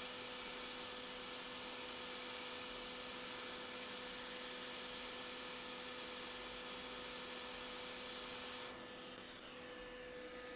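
Quick 861DW hot air rework station blowing a steady hiss with a faint hum, heating a replacement capacitor's solder onto a logic board. The air noise drops off near the end.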